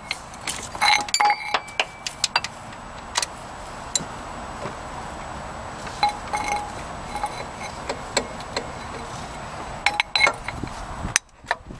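Metal wrench clinking and clicking against the alternator's 14 mm mounting bolt and bracket as it is worked loose, irregular sharp clicks and short rings over a steady background noise.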